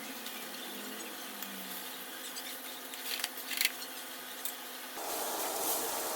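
Hot cooking oil sizzling in a pan, with a few light clicks about three seconds in. About five seconds in the sizzle suddenly gets louder and fuller.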